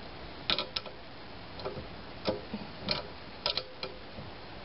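Socket ratchet clicking in a handful of short, uneven strokes as it tightens the nut of a U-bolt exhaust clamp on a generator's exhaust pipe, with the clamp drawn nearly tight.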